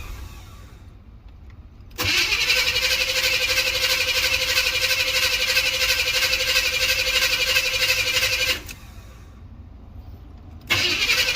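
Starter cranking a cold 305 small-block Chevy V8 for about six seconds without it catching, stopping abruptly, then cranking again near the end: a hard cold start.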